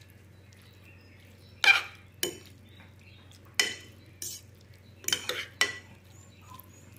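A metal fork clinking and scraping against a bowl while stirring noodles: about half a dozen sharp clinks at irregular spacing, with a faint steady hum underneath.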